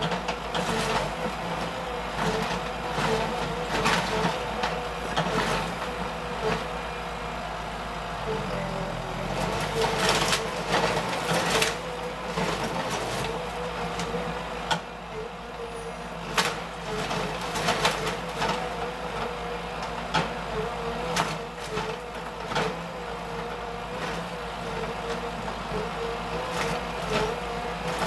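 Forestry harvester's diesel engine and hydraulics running steadily as its harvester head grips and works a felled conifer trunk, with many sharp cracks and snaps of wood and branches at irregular moments.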